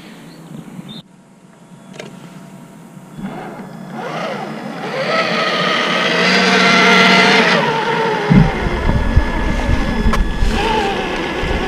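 Traxxas TRX-4 Bronco RC crawler driving on sand: the electric motor and gears whine, rising from about four seconds in, holding, then easing off near eight seconds. After that a low rumble and a few knocks join in.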